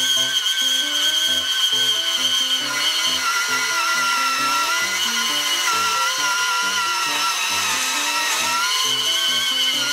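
Makita PB180D cordless portable band saw cutting through two steel pipes: a steady, high motor-and-blade whine that drops slightly in pitch about three seconds in and then holds. Background music with a simple melody plays underneath.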